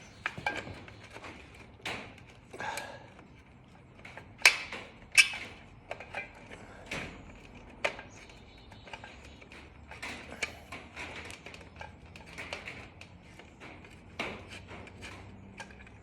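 Scattered metallic clicks and clinks from a screwdriver and small screws while a headlight trim-ring screw is worked loose, with two sharper knocks close together about four and a half and five seconds in.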